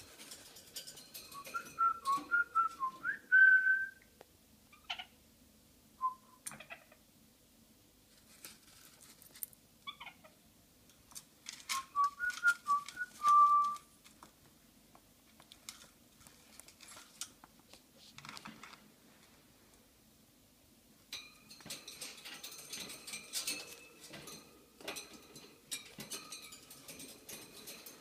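Cockatiel whistling a short phrase of quick notes that ends on a held note, twice, about ten seconds apart. Rustling and scratching noise follows near the end.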